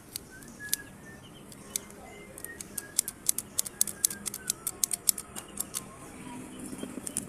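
A blender's metal push-button switch clicking as its button is pressed and released over and over, the freshly oiled mechanism being worked. A few clicks come first, then a quick run of sharp clicks, several a second, from about two seconds in until about six seconds in.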